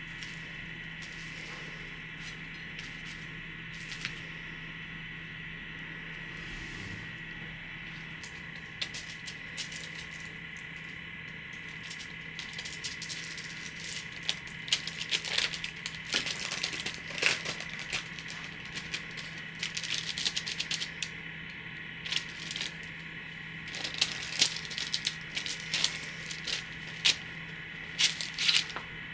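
Light clicks and rattles of kitchen utensils being handled, sparse at first and busier after about twelve seconds, over a steady low hum.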